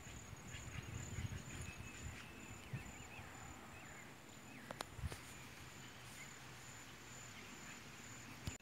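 Faint open-air ambience: an insect's high, steady pulsing trill with a few faint bird chirps and a low rumble underneath, and a couple of short clicks about halfway through.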